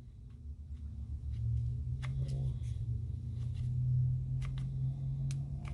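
Light clicks and taps of a small metal ratchet and its wooden handle being handled and lined up, over a steady low hum that grows louder after about a second.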